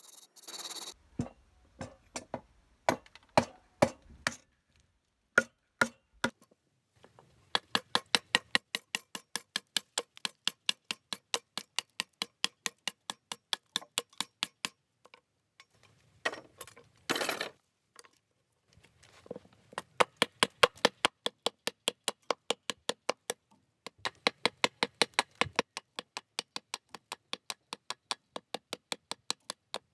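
Mallet striking a carving chisel to hollow out a wooden plate by hand: runs of sharp wooden taps, about three or four a second, broken by short pauses and a brief scraping rustle midway.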